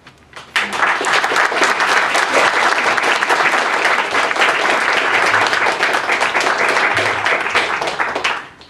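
Audience applauding, starting about half a second in and dying away shortly before the end.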